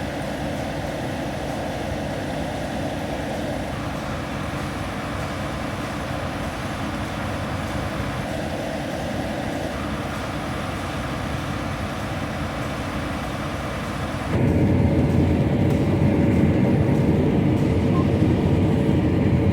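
Steady rumbling engine and running noise of a John Deere S680 combine harvester travelling along a road. About three-quarters of the way through it becomes suddenly louder and heavier.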